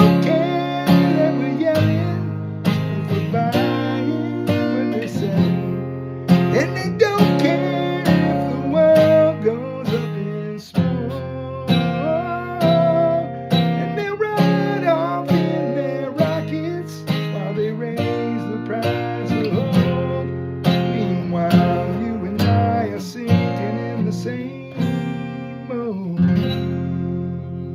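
Acoustic guitar strummed in a steady rhythm under a melodic line, an instrumental passage of the song, growing quieter over the last few seconds.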